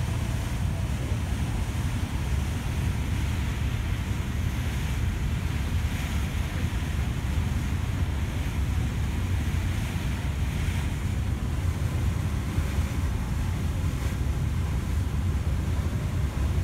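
Steady low rumble of the sightseeing ship Santa Maria under way, mixed with a hiss of wind and water.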